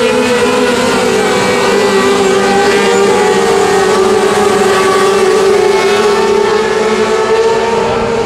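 Several small winged dirt-track sprint cars' engines running together at a steady, high pitch, their notes drifting slightly up and down as they circle the oval.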